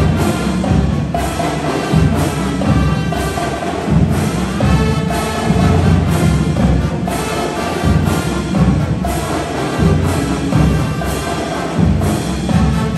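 High school marching band playing: brass over heavy bass drums and percussion, with big accented hits every second or so.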